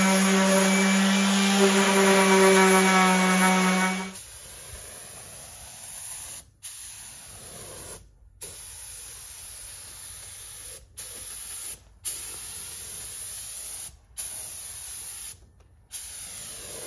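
For about the first four seconds, a handheld power tool runs with a loud, steady high whine. Then a compressed-air paint spray gun hisses while spraying the parts, cutting off briefly about six times as the trigger is released and pressed again.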